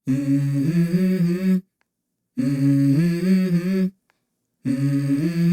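Music: a wordless a cappella vocal, hummed phrases of held notes that step in pitch, three phrases of about a second and a half each with short pauses between.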